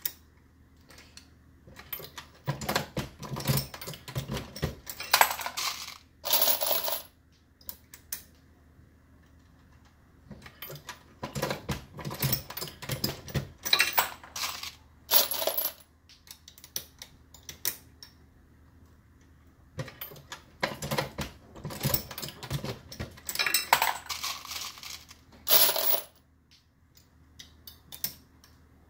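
Brass rifle cases and bullets clinking against the metal parts of a Dillon RL550B progressive reloading press as .223 rounds are loaded, with clicks and clanks from the press. The sound comes in three runs of rapid clinking, with a few sharper ringing hits, separated by short pauses.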